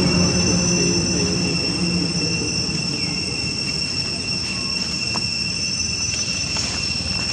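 A steady, high-pitched drone of insects, holding two even tones. Under it, a low vehicle engine hum fades out in the first couple of seconds.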